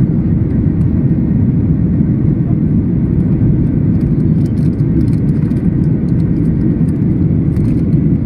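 Steady, loud low rumble inside the cabin of a Boeing 737-800 in flight, from its CFM56 jet engines and the rushing airflow while it climbs after takeoff.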